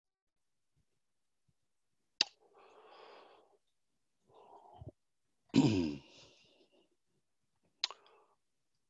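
A man's breath and mouth noises close to a headset microphone: a sharp lip click about two seconds in, soft breaths, a short falling sigh-like vocal sound just past the middle, and another click near the end.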